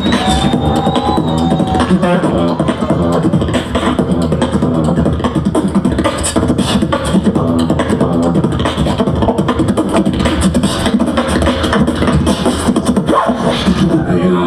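Live beatboxing into a microphone: a dense, fast rhythm of vocal kick, snare and hi-hat sounds, played over sustained pitched talkbox tones, with a held gliding tone near the start.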